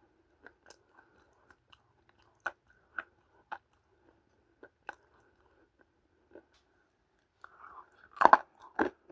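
A person biting and chewing dry multani mitti (fuller's earth clay), recorded up close. Small sharp crunches are spaced out for most of the time, then there are several loud crunchy bites near the end.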